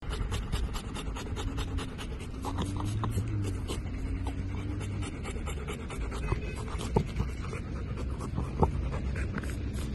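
Labrador retrievers panting quickly and steadily, over a steady low rumble.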